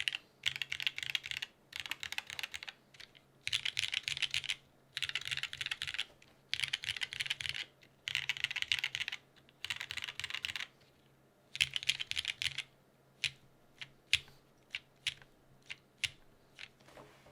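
Fast typing on a PJB Eros TKL mechanical keyboard with an aluminium plate, lubed and filmed vintage Cherry MX Black linear switches and GMK Beta keycaps, in bursts of about a second with short pauses. From about 13 seconds in it changes to single key presses, one at a time.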